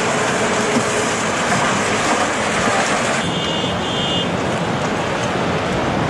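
Open-top jeep running as it drives over a snowfield, heard as a loud, steady noisy rumble. The sound shifts about three seconds in, with two brief high thin tones.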